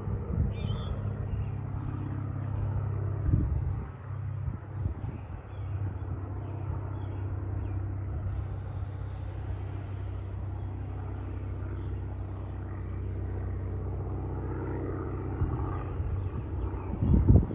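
Cessna 305A banner plane's piston engine droning at a steady pitch, with wind buffeting the microphone in a couple of gusts, the strongest near the end.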